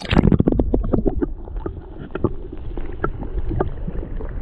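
Stream water rushing and bubbling, heard muffled through a submerged camera, with a run of knocks and clatter in the first second or so.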